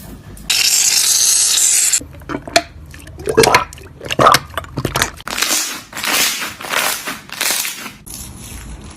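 Slime being squished and pressed: a stream of sticky clicks and pops, with a hiss lasting about a second and a half near the start and several longer squelching bursts in the second half.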